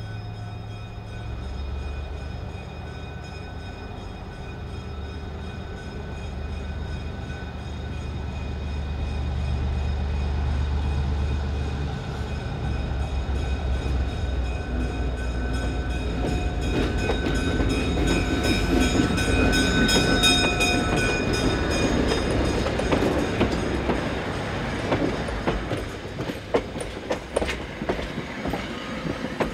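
Burlington EMD E5 diesel passenger locomotive, with its two 12-cylinder 567 engines, runs toward and past, growing louder. Its streamlined stainless-steel passenger cars follow, and near the end their wheels make an even clickety-clack over the rail joints.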